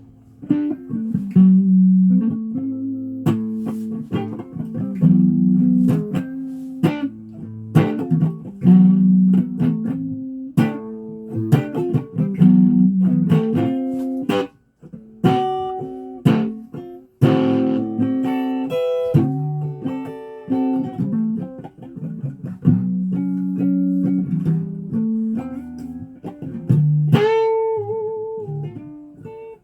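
Guitar played with a pick: a steady run of plucked single notes and chords, breaking off twice briefly in the middle and ending on a held chord.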